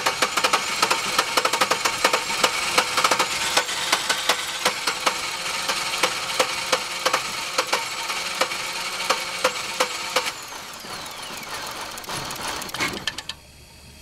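Chevy Venture's 3.4-litre V6 cranking on the starter without firing, a fast, even chugging that stops about ten seconds in and then dies away. The injectors are getting no pulse, which the owner puts down to a failed camshaft position sensor.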